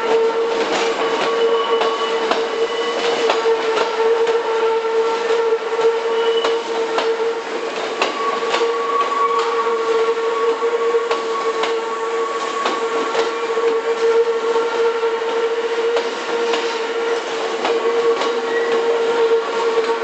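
Hankyu 3300 series electric train passing at low speed, its wheels clicking and clattering irregularly over rail joints and points, with a steady tone from the train underneath.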